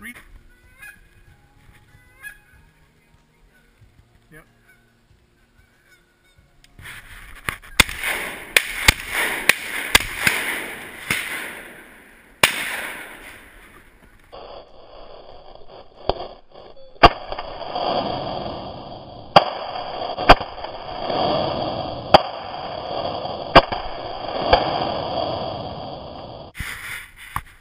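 A flock of geese honking in two long, dense stretches, the first starting about seven seconds in and the second after a short lull, with sharp clicks among the calls.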